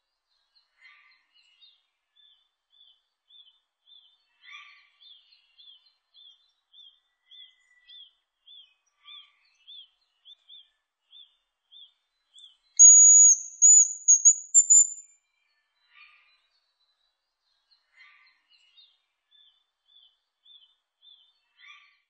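Hazel grouse singing once, about halfway through: a very high, thin whistled song of about two seconds, a drawn-out note breaking into a short trill. Faint short chirps repeat about twice a second before and after it.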